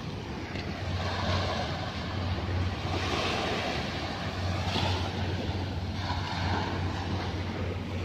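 Small waves washing onto a sandy beach, with wind rumbling on the microphone.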